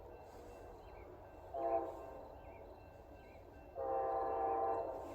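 Amtrak locomotive's air horn sounding as the train approaches, a chord of several tones: a short blast about a second and a half in, then a longer blast near the end, over a low rumble from the train.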